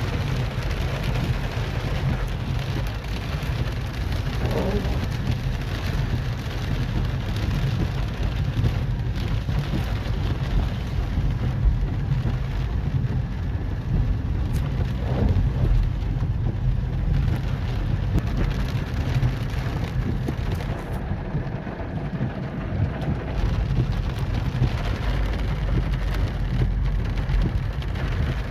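Heavy rain pouring down in a steady, dense patter.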